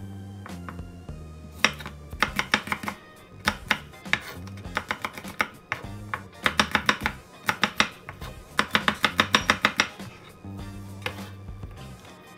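Chef's knife chopping garlic and ginger on a wooden cutting board: several quick runs of sharp strokes, about ten a second, over background music.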